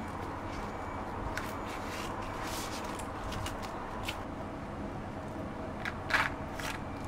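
Bamboo leaves and a plastic-gloved hand rustling and crinkling in short bursts as the leaves are folded into a cone, over a steady background hum. About six seconds in comes a louder scrape as a spoon scoops rice into the leaf.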